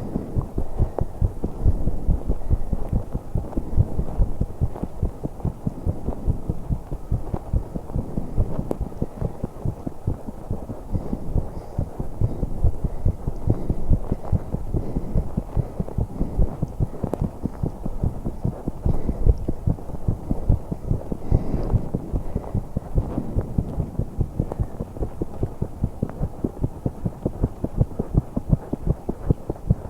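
A young woman's heartbeat during exercise, beating fast and steadily as a dense run of low thumps, with breath sounds swelling over it now and then.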